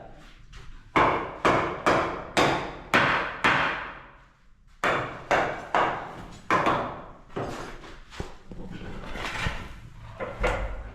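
Hammer blows, about two a second, in two runs of five or six strikes with a short pause between, then fainter knocks.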